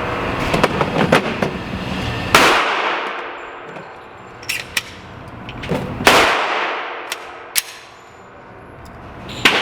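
Pistol shots in an indoor range: three loud shots spaced roughly three and a half seconds apart, each echoing and fading over a second or more, with fainter sharp cracks in between.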